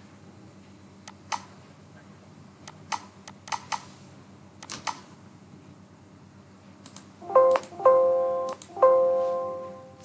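Scattered keystrokes on a computer keyboard, a few clicks at a time, then about seven seconds in three loud ringing musical notes, each fading away, the last over about a second.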